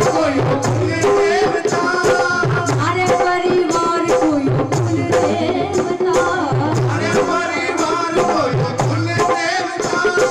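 Live Khatu Shyam bhajan through a PA: a woman singing a devotional song over a steady hand-drum beat and melodic accompaniment.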